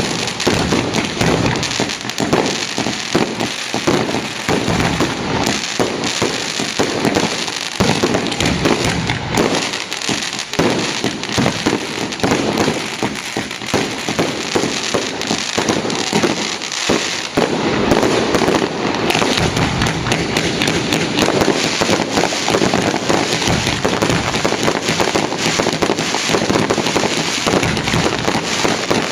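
Fireworks display: a dense, continuous run of bangs and crackling shell bursts, growing into a thicker, fuller barrage a little over halfway through.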